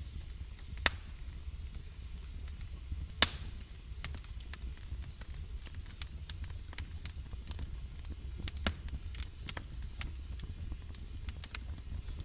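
Wood logs burning in a fireplace, crackling with frequent small snaps and two loud pops about one and three seconds in, over a low steady rumble.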